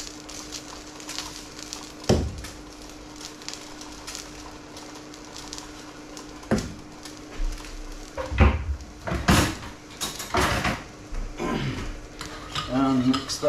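Kitchen utensil noises over a steady low hum: a couple of sharp knocks, then a run of scraping and rustling from about eight seconds in, and near the end a spoon clinking in a small metal bowl as salt and pepper are mixed into a dressing.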